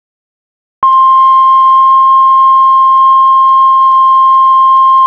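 Heart monitor flatline: one continuous high-pitched beep tone, starting about a second in and held steady, the signal that the patient's heart has stopped.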